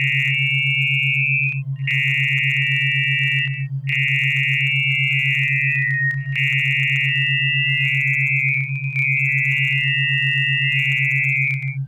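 Synthesized test tones: a steady low buzzing tone that pulses several times a second, under a higher warbling tone that cuts out briefly every two to two and a half seconds. The higher tone is shaped so that its spectrogram spells the word PERDÓN, a word hidden in the sound for the listener to perceive.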